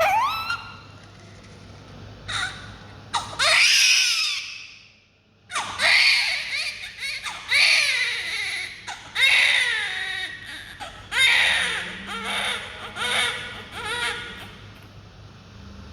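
Baby crying in repeated high-pitched wails, each falling in pitch, about one every second and a half, with a short break about five seconds in. A steady low hum runs underneath.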